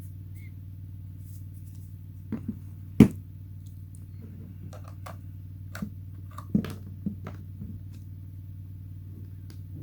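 A few sharp plastic clicks and knocks of a USB Type-C cable being handled and plugged into a phone, the loudest about three seconds in. Under them runs a steady low hum.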